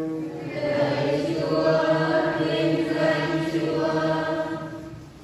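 Church choir singing a slow liturgical chant with long held notes; the singing fades away near the end.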